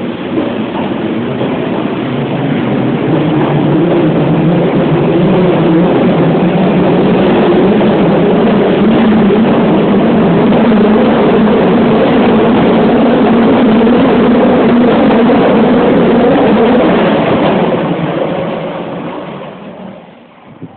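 Osaka Metro 10 series subway train departing and running past along the platform. Its motor whine rises in pitch at the start, and the running noise builds over the first few seconds, holds steady, then fades out near the end as the last car leaves.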